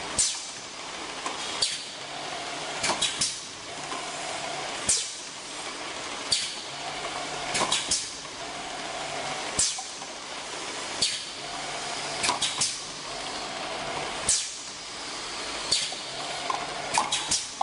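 Four-head piston sauce filling machine cycling: sharp hisses of air venting from its pneumatic cylinders, in a repeating pattern of about three every five seconds, over a steady mechanical hum.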